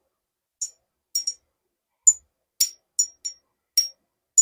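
A piece of jia cui stone, a tremolite and serpentine mix, tapped about nine times at an uneven pace. Each tap is a short click with a brief high ring, which the speaker finds a lot higher in pitch than serpentine.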